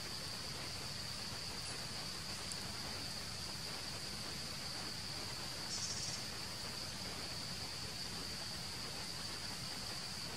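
Steady high-pitched drone of forest insects, with a brief higher-pitched sound about six seconds in.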